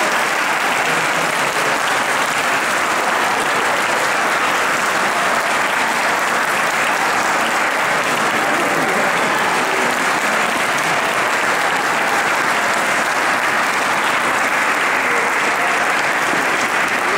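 Audience applauding steadily with dense, even clapping.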